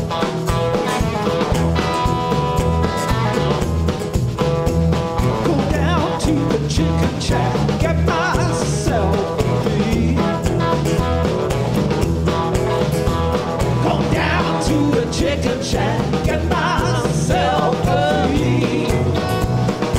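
Live band playing a blues-rock song on drums, bass guitar, electric and acoustic guitars, with singing coming in about five seconds in.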